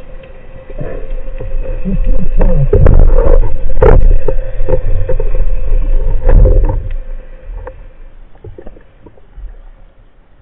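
Underwater handling noise picked up by a camera mounted on a speargun: low rushing rumble and repeated sharp knocks and clicks as the spearfisher hauls in the line and swims, over a steady faint hum. It fades away after about seven seconds.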